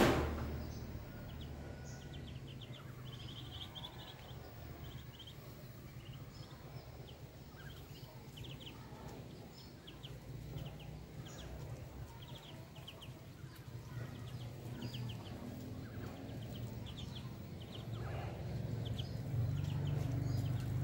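A brood of ducklings peeping: many short high peeps in quick runs throughout. A brief loud knock at the very start, and a low hum underneath that grows louder near the end.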